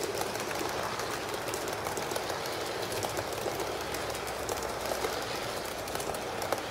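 HO scale model train running along its track: a steady whirring rolling noise with many light, irregular clicks.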